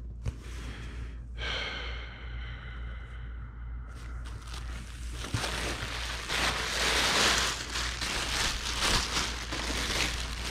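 Thin plastic bag crinkling and rustling as it is pulled out and shaken open, starting about halfway through and loudest soon after. A few seconds earlier comes a held tone lasting a couple of seconds.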